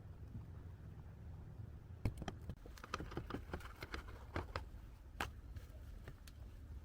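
A run of light clicks and knocks, as of things being handled, starting about two seconds in, over a low steady hum.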